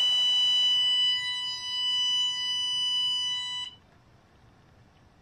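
A short puff of breath into an Our K9 Garnet bark collar's bark-detection hole, and the collar's buzzer sounding one steady high beep for about three and a half seconds before cutting off suddenly. The beep marks the third bark detected, when the collar also gives its small shock.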